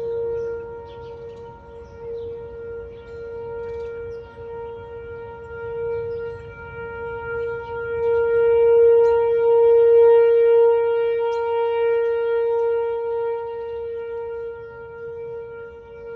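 Whelen 4004 electronic outdoor tornado warning siren sounding a steady alert tone during a test. It holds one pitch throughout while its loudness swells and fades, loudest a little past the middle.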